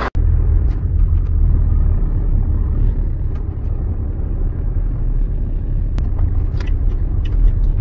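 Steady low rumble of a vehicle on the move, with a few faint clicks over it.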